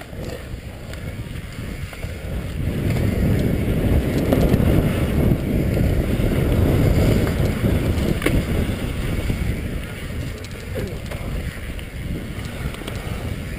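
Wind buffeting the helmet-camera microphone and tyre rumble from a mountain bike descending dirt singletrack, a steady low rushing that swells in the middle, with one sharp click about eight seconds in.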